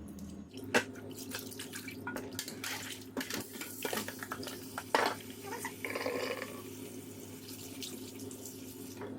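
Raw chicken pieces being washed in water at a sink, with splashing and the clatter of handling; two sharp knocks, about a second in and about five seconds in, are the loudest. A steady low hum runs underneath.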